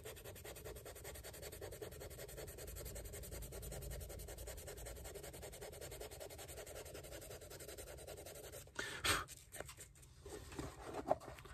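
Fine sandpaper (worn 400 grit) rubbed by hand over the leather toe of a dress shoe to smooth out scratches, a faint, steady scratchy rubbing. A few short, louder scuffs about nine seconds in and near the end.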